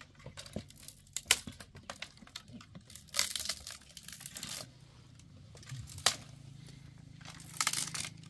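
Dry brushwood twigs being gathered and broken by hand: a string of sharp snaps, the loudest about a second in and again around six seconds, with longer dry crackling rustles around three to four seconds and near the end.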